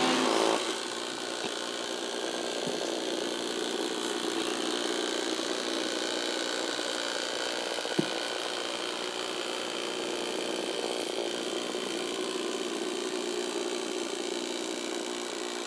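The 4M Doodling Robot's small motor buzzes steadily as the toy skitters across paper on its three marker-tip legs, with a scratchy rubbing from the tips. A single sharp click comes about eight seconds in.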